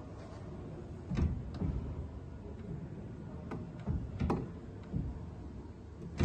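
A few irregular light knocks and clicks over a low steady hum.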